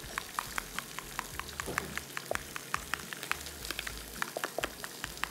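Hot cooking oil crackling and spitting as food fries, with sharp, irregular pops several times a second over a faint sizzle.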